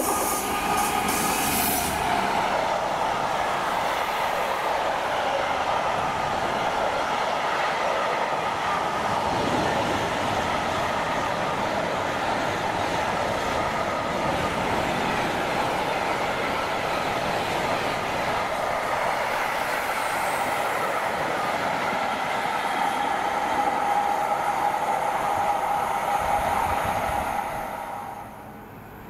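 A freight train of covered box wagons behind a Class 66 diesel passing at speed: a steady rumble and clatter of wagon wheels on the rails with a faint high ringing over it. It falls away sharply near the end as the last wagon draws off.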